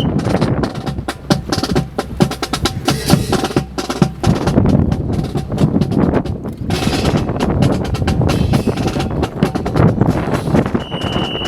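Honor guard fancy rifle drill: rifles slapped into gloved hands, spun and caught, with butts and boots striking the ground, making a rapid, irregular series of sharp wooden clacks and knocks.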